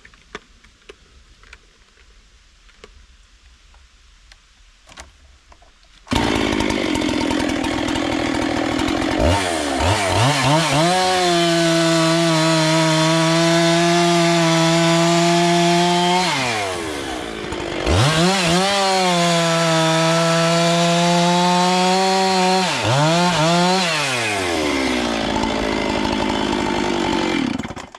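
A large two-stroke chainsaw, the 85, comes in suddenly about six seconds in, running at a low speed. It then goes to full throttle and holds a steady high pitch through a cut. It drops briefly, goes back to full throttle for a second cut, then falls back to idle and shuts off near the end.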